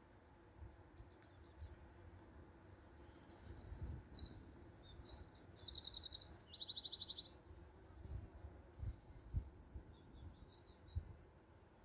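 A small songbird singing a burst of fast, high trills and twitters for about four seconds in the middle, with a few fainter high notes after it, over a low, faint outdoor rumble.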